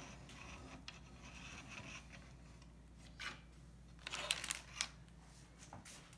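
Faint handling noises from a wooden marbling comb being lifted out of the size bath and laid on the tray: a brief rub about three seconds in, then a short rustle and a light click a little after four seconds.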